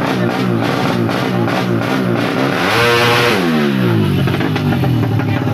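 A tuned four-stroke underbone drag bike at high revs runs past about three seconds in, its pitch holding high and then dropping steeply. Music and other engine noise play underneath.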